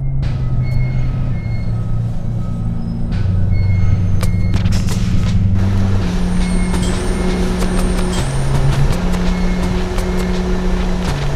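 Low sustained music notes that shift in pitch every second or two, laid over the rumble and hiss of a city bus ride, with short high beeps repeating about once a second; the noise and clicking grow denser about halfway through.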